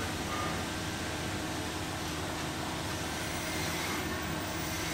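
Steady background hum and hiss with no distinct knocks or clicks.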